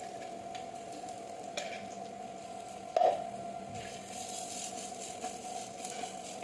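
Food sizzling in a pan as it is stirred, over a steady hum, with one sharp knock about three seconds in.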